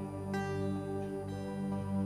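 Slow, gentle worship-song instrumental on acoustic guitar, with held chords that change twice. No singing.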